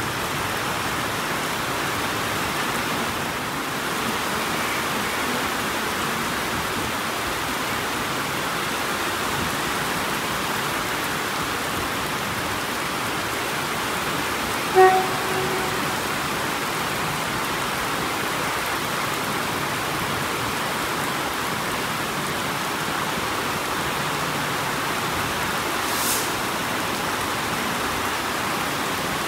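Steady rain falling, an even hiss. About halfway through a short pitched sound cuts in briefly, and there is a faint click near the end.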